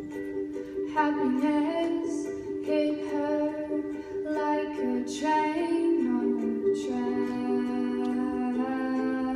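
Live band music: a female voice singing a slow melody, coming in about a second in, over strummed ukulele and acoustic guitar.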